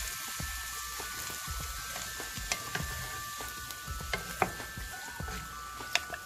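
Chicken stock poured into a hot pot of broccoli and potato, sizzling as a wooden spatula stirs, with two sharp knocks of the spatula against the pot, one about four seconds in and another near the end. Soft background music with held notes plays underneath.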